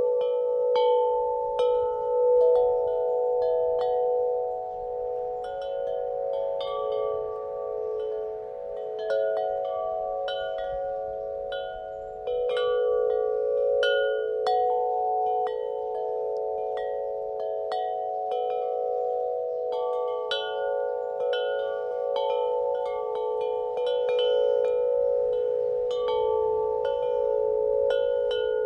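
Wind chimes ringing in the wind, their tubes struck irregularly and often, with several overlapping long-ringing tones, and a little wind noise underneath.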